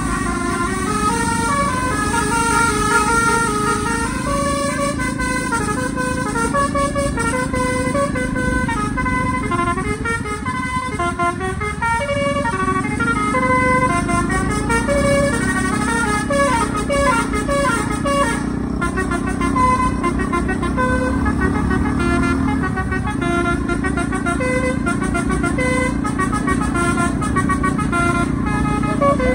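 Bus telolet horn, a multi-trumpet air horn driven by a Takur melody module, playing a fast string of short stepping notes, tune after tune without pause, over a steady low rumble.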